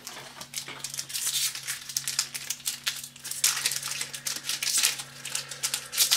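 Foil wrapper of a Magic: The Gathering booster pack crinkling and tearing as it is opened by hand, in many irregular crackles.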